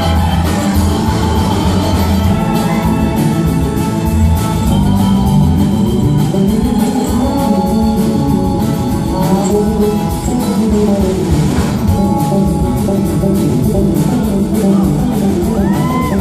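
A live band playing a song, with guitars, electric bass, keyboard and drums, loud and unbroken.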